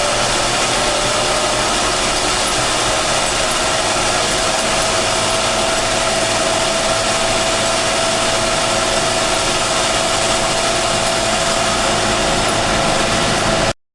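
John Deere 6930 Premium tractor's six-cylinder diesel engine running hard under heavy load while hauling a 20,000 kg rig up a steep hill. It is a steady, loud drone with a whine that climbs slightly in pitch, and it cuts off abruptly near the end.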